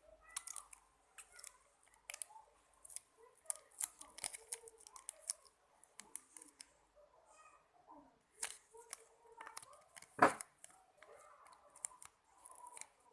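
Scattered light clicks, snips and crinkles of small plastic shampoo packaging being handled and squeezed, with one sharper click a little after ten seconds in.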